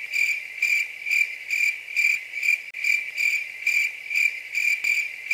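Cricket chirping sound effect: one high chirp repeating evenly about twice a second, the comic cue for an awkward silence.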